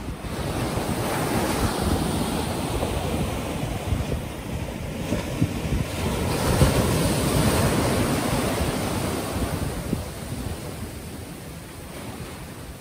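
Ocean surf washing onto the beach, the rush of noise swelling twice and easing off near the end, with wind buffeting the microphone.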